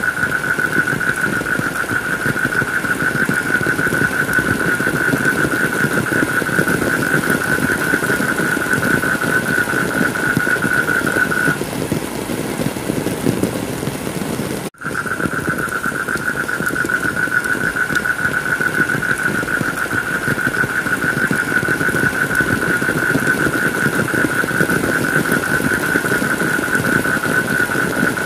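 Steady heavy rain, with a steady high-pitched whine over it that stops about twelve seconds in and comes back a few seconds later. Just as the whine returns the whole sound drops out for an instant.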